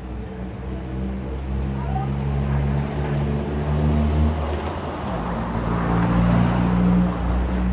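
Car traffic passing: a vehicle's engine hum with a steady low pitch, shifting about five seconds in, and a swell of tyre and engine noise that peaks and fades toward the end.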